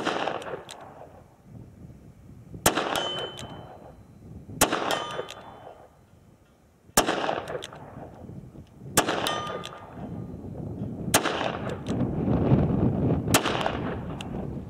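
Seven revolver shots from a Smith & Wesson Performance Center 686 Plus, a seven-shot .357 Magnum, fired about two seconds apart to empty the cylinder. Several shots are followed by the short metallic ring of bullets striking a steel silhouette target.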